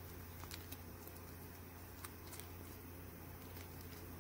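Faint, scattered light ticks and rustles of a small clear plastic bag of beads being handled between the fingers, over a steady low hum.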